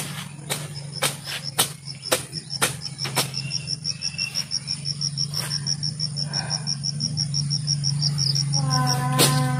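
Insect chirping in a fast, even pulse. Sharp strikes come about twice a second in the first three seconds, from a long blade hacking at weeds, over a steady low hum. A long drawn-out call begins near the end.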